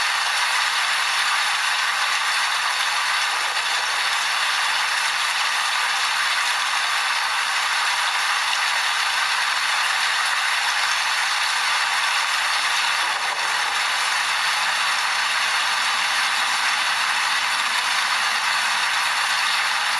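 Steady rain falling, an even hiss of dense patter with little low rumble and no thunder.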